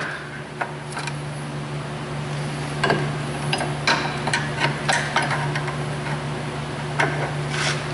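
Scattered metallic clicks and light knocks, irregular and a second or so apart, as a steel bolt and alignment bar are worked into a car's rear suspension lateral-link bushing.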